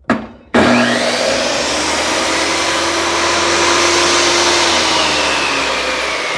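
A click, then about half a second in the table saw's electric motor starts and runs loudly and steadily, with a thin whine that slowly falls in pitch. The saw is failing: its motor has been struggling to start and throwing sparks inside, as the owner sees it.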